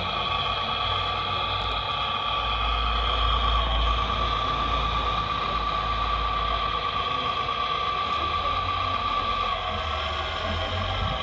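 Hydraulic pump of a scale RC excavator running with a steady high whine as its sorting grab works and closes on a rock. The whine shifts slightly in pitch about nine and a half seconds in.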